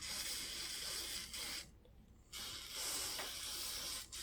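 Aerosol spray cleaner hissing in two bursts, each about a second and a half long, with a short pause between them, as the bicycle hub is sprayed down for cleaning.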